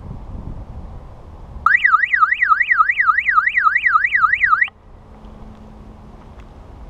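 M!nder bike alarm sounding a loud electronic wail that sweeps quickly up and down in pitch, about four sweeps a second. It starts about a second and a half in, lasts about three seconds and cuts off suddenly. It is set off by an attempt to remove the front wheel.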